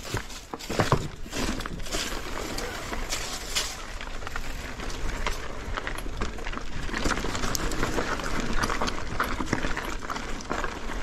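Mountain bike rolling slowly over a rocky dirt trail: tyres crunching over stone and loose grit, with frequent small clicks and rattles from the bike.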